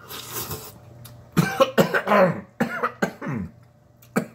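A man coughing and clearing his throat several times in quick succession while eating, set off by hot pepper in his food. A breathy gasp comes first, then a run of short voiced coughs.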